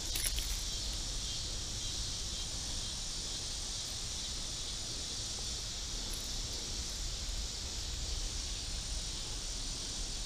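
Steady high-pitched chorus of insects, such as crickets, with a low rumble underneath.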